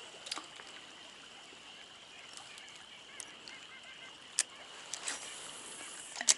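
Faint bird calls over a steady hiss of running water, with a couple of sharp clicks in the second half.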